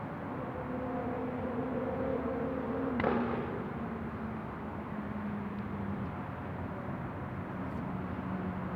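Airliner jet engines running at taxi idle: a steady rumble with a hum that slowly falls in pitch. A single sharp click about three seconds in is the loudest moment.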